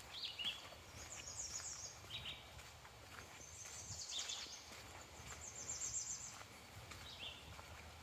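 Small birds singing: a few short chirps and fast trills, the longest trill about six seconds in, over a low outdoor rumble with faint scattered ticks.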